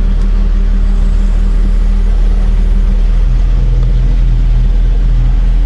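Vauxhall Astra GSi rally car's engine idling steadily, heard from inside the stripped cabin, its low note changing slightly about three seconds in.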